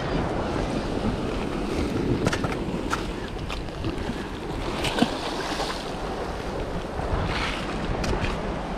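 Wind buffeting the microphone over the wash of the sea against the rocks, with a few short scuffs and knocks of shoes on the rock.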